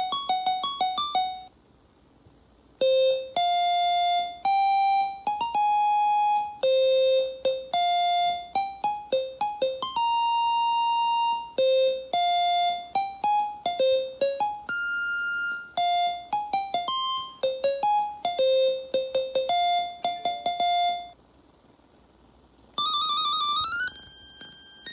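An SN76489 sound generator chip driven by an Arduino plays RTTTL ringtone melodies as single-voice electronic beeps. One tune ends about a second and a half in, a longer tune follows until near the end, and a third starts with fast warbling notes.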